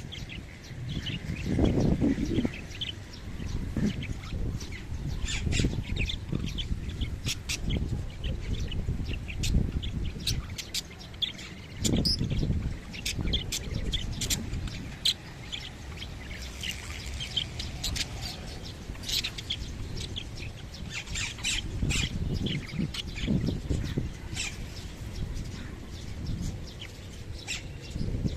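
A pair of parrots chirping and squawking in many short, sharp calls, over a low rumbling noise that swells now and then.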